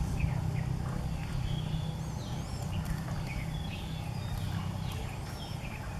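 Small birds chirping in short calls over a steady low rumble.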